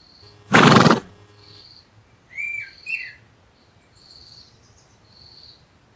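A horse gives a loud, short snort about half a second in; a little later a bird chirps twice, with faint high bird calls in the background.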